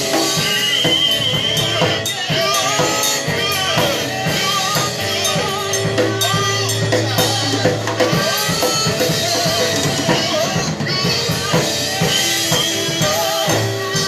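Gospel worship music with a full drum kit keeping a steady beat under held bass notes and a wavering melody line.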